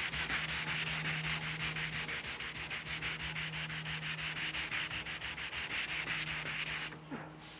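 Hand sanding with 220-grit sandpaper, smoothing a trimmed bung flush on a black walnut boat coaming: quick, even back-and-forth rubbing strokes, several a second, stopping about seven seconds in.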